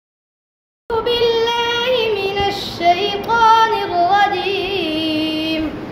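A boy's voice chanting in the melodic, drawn-out style of Quran recitation (tilawat): long held notes with wavering ornaments, starting about a second in.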